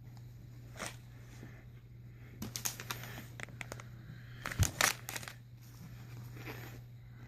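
Items and packaging being handled, with scattered crinkles and light clicks, the loudest pair about five seconds in, over a steady low hum.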